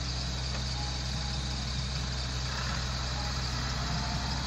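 Massey Ferguson 385 tractor's diesel engine running steadily under load as it pulls a trolley heaped with sand.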